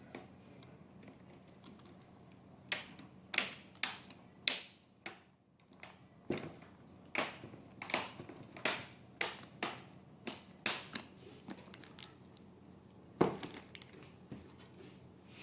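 Sharp plastic-and-metal clicks and taps from handling a laptop's case and parts during a RAM upgrade: about fifteen irregular clicks over eight seconds, then one louder snap near the end.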